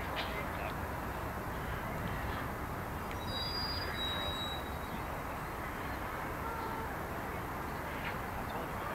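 Steady outdoor background rumble of open-air ambience, with a few faint short high chirps about three to four seconds in.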